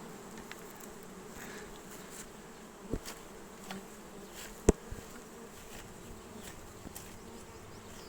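Honeybees humming steadily in a busy apiary during a sunflower honey flow, with strong colonies foraging hard. Two clicks cut through, about three seconds in and a louder, sharper one a couple of seconds later.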